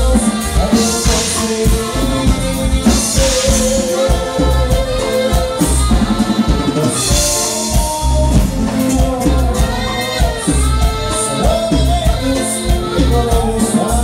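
Live band playing Latin American dance music, with a singer and a drum kit and bass keeping a steady beat, loud throughout.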